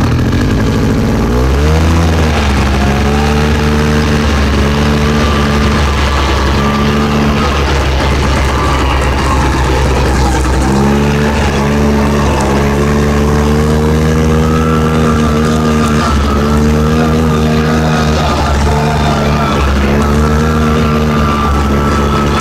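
Four-wheeler ATV engine pulling away in gear about a second or two in, then running at a steady riding pace. Its pitch drops back around the middle and picks up again soon after.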